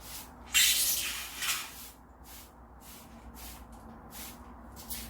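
Spray hiss: one loud burst lasting about a second, starting about half a second in, followed at once by a shorter, weaker second spray. It is typical of misting the moss on a wood-mounted orchid.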